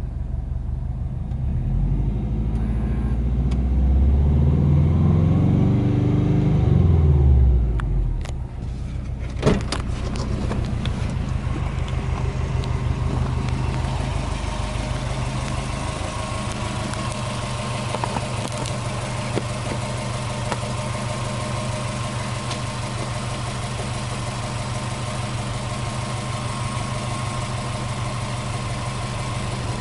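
Subaru Impreza SRX STi Version V's flat-four boxer engine revved once, its pitch rising over a few seconds and falling back. A sharp knock follows about nine seconds in, then the engine idles steadily.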